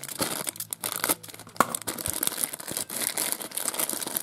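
Thin plastic toy packet being crinkled and torn open by hand: a dense, irregular crackling with sharper snaps here and there.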